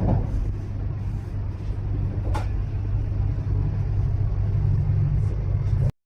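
Italo high-speed train running at speed, heard from inside the passenger car as a steady low rumble, with a single click about two and a half seconds in.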